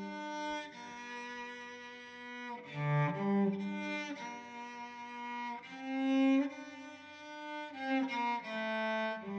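Cello bowed in a slow melody of held notes, each lasting between half a second and two seconds.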